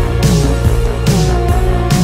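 Instrumental background music with a repeating beat and a held melody line.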